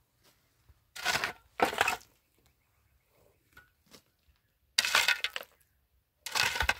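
Metal shovel scraping and scooping into gravelly, stony ground: four separate rough strokes, two close together early and two more later.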